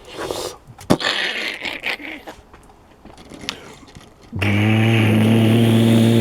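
Rustling and scraping with a sharp click about a second in, then a loud, steady, low engine-like drone starting about four and a half seconds in and cutting off near the end.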